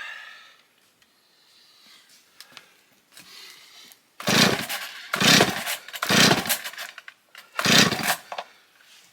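A two-stroke chainsaw being pull-started: four pulls on the starter cord in about four seconds. Each pull gives a short burst of engine noise, and the engine does not settle into a steady run.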